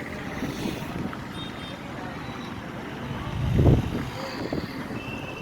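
Vehicle noise from a roadside: a steady low rumble with a brief louder surge about three and a half seconds in.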